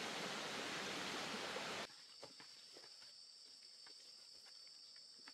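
A steady rush of running water that cuts off abruptly about two seconds in. Quieter forest ambience follows, with insects trilling on two steady high pitches and faint scattered crackles.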